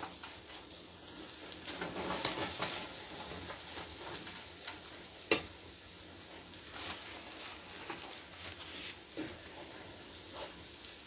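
Eggs and sardines sizzling in a frying pan while a metal fork stirs and breaks them up, with scattered light clicks of the fork against the pan and one sharper tap about five seconds in.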